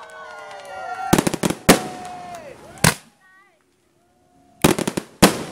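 Fireworks going off: a cluster of sharp bangs and cracks about a second in, single bangs after it, and another quick cluster near the end. Between the bangs, people whoop and cheer.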